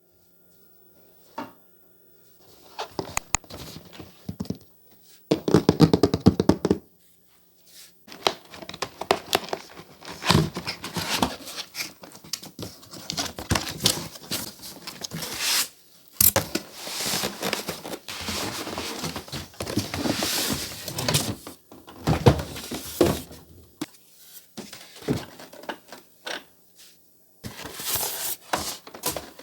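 Close-up handling noises: a run of knocks and thunks mixed with crinkling, coming in bursts with short pauses.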